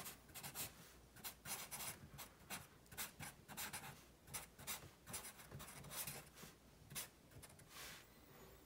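Felt-tip Sharpie marker scratching over paper in many short, quick strokes while writing out letters; faint.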